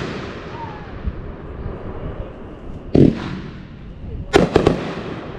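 Reports from a 500-gram firework cake set off at a distance. There is one loud bang about three seconds in, then a quick cluster of several sharp bangs a second and a half later, each trailing off in an echo.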